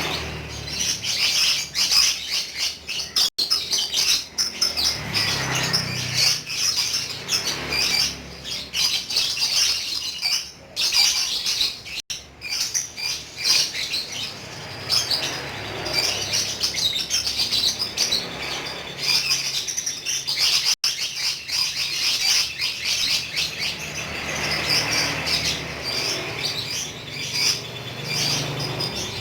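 Lovebird singing its long 'ngekek' chatter: a rapid, high-pitched, almost unbroken stream of chirps and trills. Three brief cutouts of total silence interrupt it.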